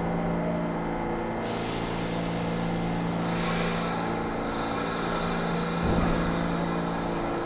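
Standing New York City subway train with doors closed, its equipment giving a steady hum. About a second and a half in comes a loud hiss of air as the air brakes release before departure, fading out over about three seconds. A low thump follows near the end.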